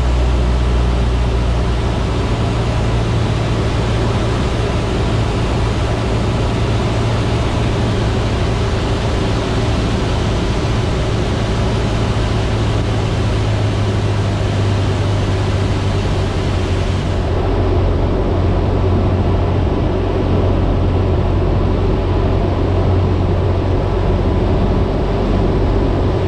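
Cessna 152's four-cylinder Lycoming engine and propeller running steadily in cruise flight, a constant drone heard inside the cockpit.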